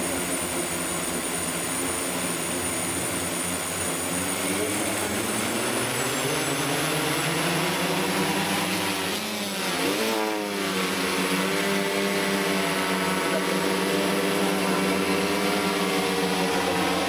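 Large octocopter drone's electric motors and propellers spinning up and lifting off: a steady multi-tone whine that rises in pitch, dips and climbs sharply about ten seconds in, then holds higher once airborne.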